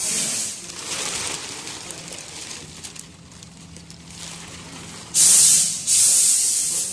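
Compressed-air blow gun hissing in several short bursts, loudest in the last two seconds, with plastic sheeting crinkling between them.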